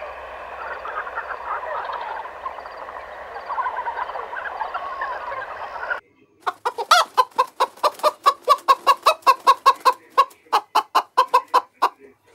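A steady, dense din of many overlapping calls for about six seconds, then it cuts off and domestic chickens cluck in a fast run of short, loud clucks, about four a second, thinning out near the end.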